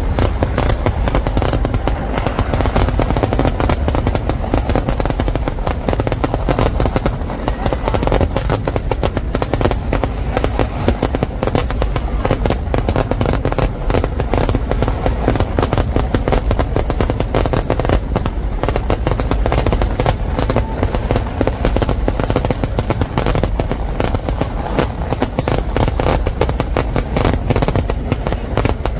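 Fireworks: an unbroken barrage of firecracker blasts fired in rapid succession, so many bangs so close together that they run into one continuous loud crackle.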